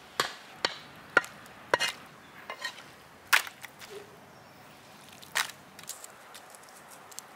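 Cleaver chopping boneless goat meat on a wooden tree-stump block. Sharp chops come about twice a second for the first two seconds, then a few scattered strikes, the last about five and a half seconds in.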